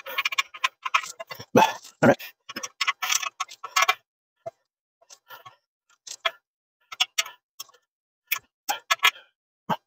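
Small metal clicks and rattles of a bolt being fitted by hand into a metal bed-frame rail and leg joint: a dense run of clicks over the first four seconds, then scattered single ticks.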